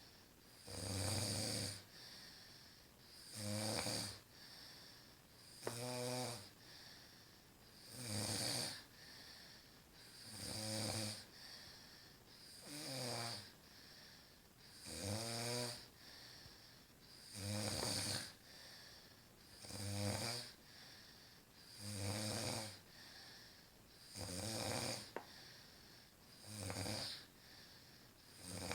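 Deep, regular snoring: a rasping snore about every two and a half seconds, a dozen in a row, with a fainter breath between each.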